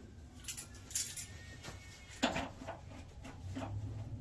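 A few light metallic clinks and taps, spaced out, from handling a fitting on an old water heater while working it loose. A low steady hum comes in near the end.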